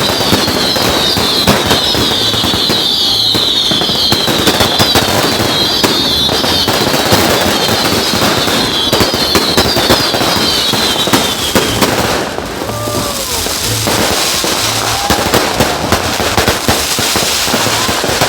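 Fireworks going off close by: dense, rapid crackling and popping, with a high whistle that falls in pitch over and over until about two thirds of the way through, when it stops and the crackling carries on.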